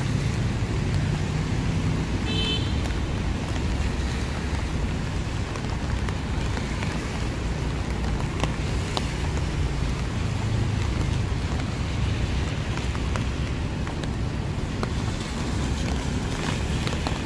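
Rain falling on a city street as a steady hiss, over the low rumble of passing car traffic. A brief high tone sounds about two and a half seconds in.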